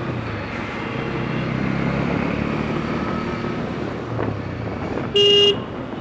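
Bajaj Pulsar N160 single-cylinder motorcycle engine running in traffic, its pitch drifting a little, over road and wind noise. A vehicle horn blares once for about half a second near the end; it is the loudest sound.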